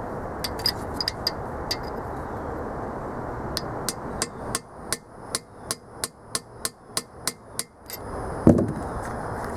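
Hammer striking a steel rod to drive a half-inch oil galley plug down into its bore in a small block Chevy 350 block: a few scattered light taps, then a run of about a dozen quick, even strikes at roughly three a second, and one heavier thump near the end.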